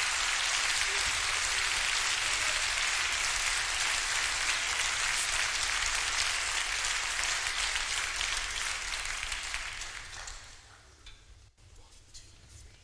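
Dense, steady crackling noise, which fades out from about nine seconds in and is gone by about eleven, leaving a few faint clicks.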